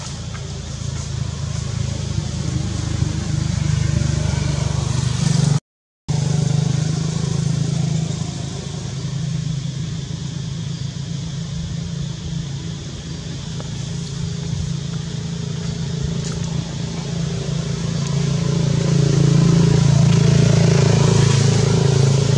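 A steady low engine drone, like a motor vehicle running nearby, growing louder near the end. The sound cuts out briefly about six seconds in.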